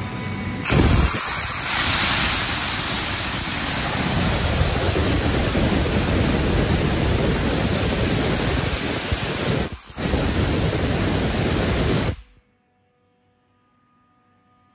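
Compressed air blasting out of a 750-litre air receiver through an opened release valve, venting the tank down from about 10 bar. It is a loud, steady hiss that starts about a second in, dips for a moment near the end, then is shut off abruptly.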